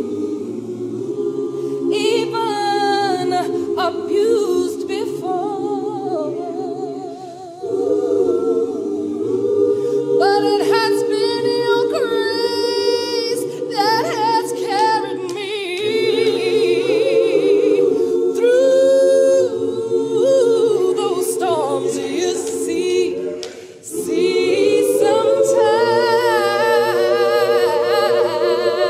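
A cappella choir singing in harmony: long held chords in phrases that break about every eight seconds.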